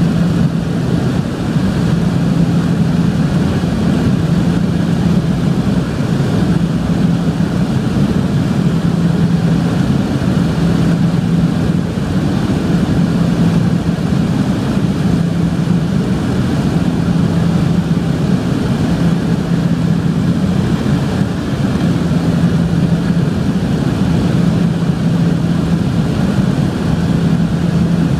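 Cabin noise of a de Havilland Canada DHC-6-300 Twin Otter in cruise: its two Pratt & Whitney PT6A-27 turboprops give a loud, steady drone. A low propeller hum in it slowly swells and fades every few seconds.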